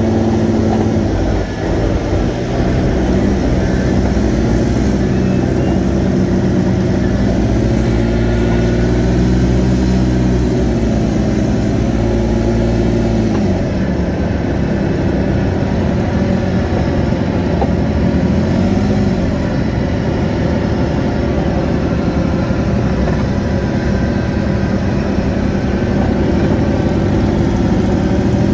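Polaris side-by-side's engine running under way, its pitch rising and falling as the revs change.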